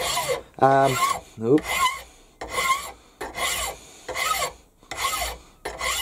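Large flat hand file rasping across a cast steam-engine cylinder held in a bench vise, in repeated strokes a little more than one a second, filing the casting flashing off its face.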